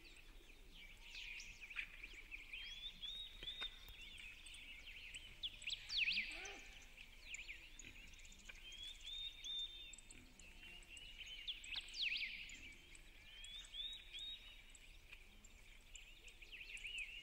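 A chorus of songbirds chirping and trilling continuously, with a louder call about six seconds in and faint low cooing underneath.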